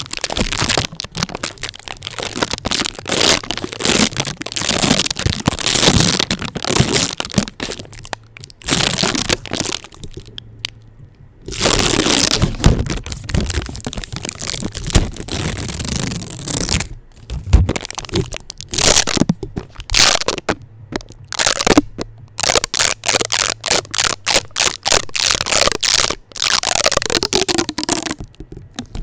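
Adhesive tape worked directly on a microphone: fast, dense crackling and sticky rustling, with a few brief pauses.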